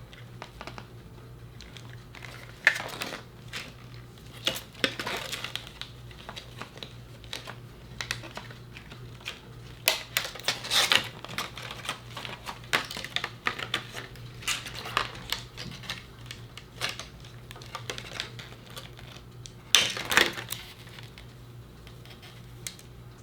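Scissors snipping the plastic tag fasteners off a doll: irregular sharp clicks and snips with some rustling, a few louder cuts near the middle and about twenty seconds in.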